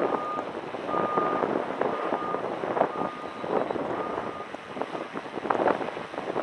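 An electronic beeper sounding a single tone about once a second, five beeps, then stopping, over gusting wind noise on the microphone.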